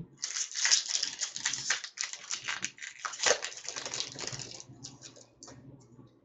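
Foil wrapper of a Fleer Ultra hockey card pack being torn open and crinkled in the hands. It gives dense crackling for about four and a half seconds, then fades to a few light crinkles.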